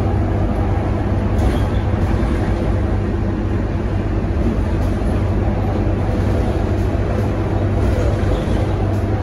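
Scania K230UB single-deck city bus under way, heard from inside the cabin: its five-cylinder diesel engine running steadily under a low hum, with tyre and road noise.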